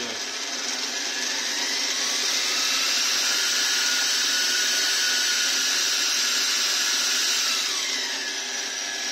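Maktek KF 25L Vario bench milling machine's spindle motor running, its whine rising in pitch over the first couple of seconds and falling again near the end as the speed potentiometer is turned up and down.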